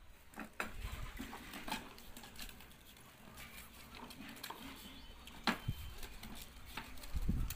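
Irregular clicks and knocks of a child's plastic ride-on tricycle rattling as it rolls over a rough concrete floor, with a few louder knocks standing out.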